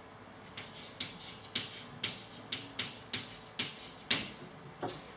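Chalk tapping and scratching on a blackboard as words are written: about a dozen short, sharp strokes in an uneven rhythm.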